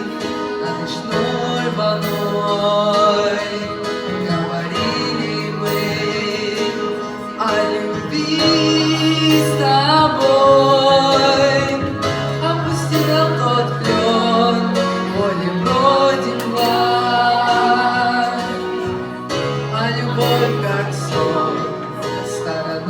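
Music: a slow pop ballad played by a band with guitar, with a male voice singing the melody from about eight seconds in.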